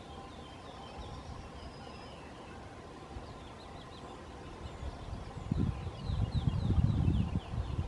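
Songbirds singing at the woodland edge: quick runs of short, high, down-slurred notes. About five and a half seconds in, a loud low rumbling noise sets in and carries on to the end.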